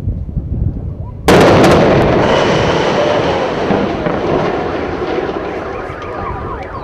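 A tower blown up with explosives: a single sudden loud blast about a second in, followed by a long rumble that slowly fades. Wailing alarms start up near the end.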